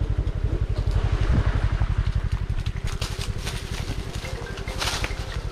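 Motorbike engine idling with an even, rapid low putter. A few dry crackles, like dead palm fronds being stepped on, come over it, the sharpest near the end.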